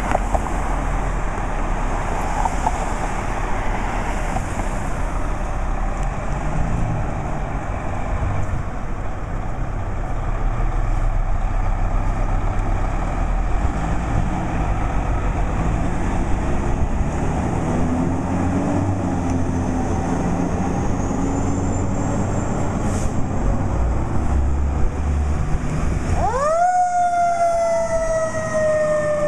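Fire apparatus diesel engines running with a steady low rumble under broad noise as the rigs roll out of the station. Near the end a siren starts, sweeping up quickly and then falling slowly in a long wail.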